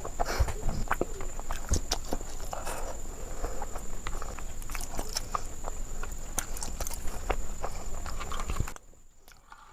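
Close-miked chewing and biting of a soft sweet: irregular wet clicks and smacks over a steady faint high-pitched whine. The sound drops away for about a second near the end.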